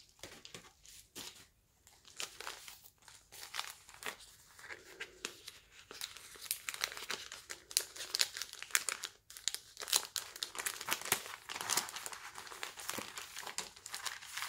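Paper wrapping being opened and unfolded by hand: irregular crinkling and rustling of paper, busiest and loudest in the middle of the stretch.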